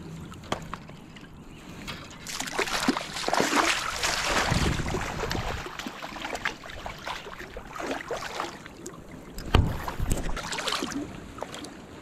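Shallow river water splashing and sloshing in uneven bursts, with scattered knocks, loudest in two stretches.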